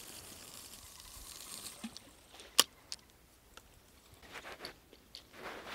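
A bottom rod being cast with a spinning reel: line hisses off the spool for about two seconds and fades, then a sharp click comes about two and a half seconds in, with a softer one just after, followed by small handling rustles and clicks.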